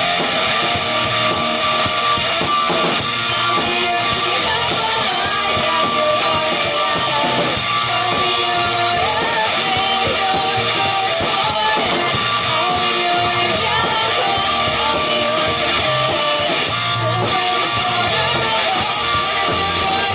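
Live rock band playing a guitar-led instrumental passage, with drums and cymbals underneath.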